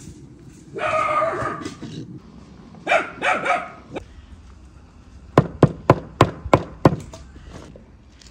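A dog barks and yelps a few times in the first half. Then come six sharp clicks about a third of a second apart: cornelian cherries dropped into glass jars.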